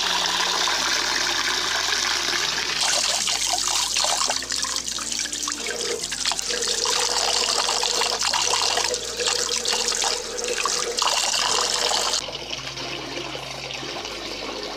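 Tap water running and splashing into a metal pot holding stinging nettle (kandali) sprigs for washing. The splashing shifts abruptly about three seconds in and drops quieter about twelve seconds in.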